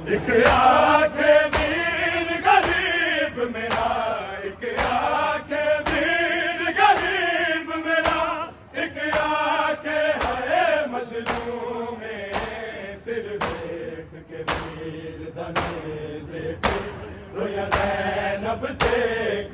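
A group of men chanting a noha (Shia lament) in unison, with hand slaps on the chest (matam) keeping a steady beat about one and a half times a second.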